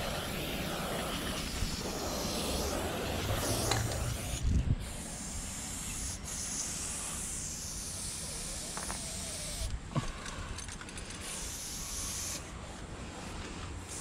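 Aerosol spray-paint can hissing as paint is sprayed onto a concrete wall, in long spurts with brief breaks.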